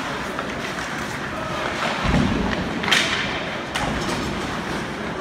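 Youth ice hockey game noise in a rink: a steady hiss of play and arena ambience, with a heavy thud about two seconds in and a sharp crack just under a second later.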